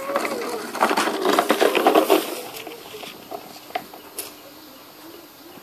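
Puppies making play-fighting noises, short yaps and growls, busiest from about one to two seconds in, then a few scattered small sounds.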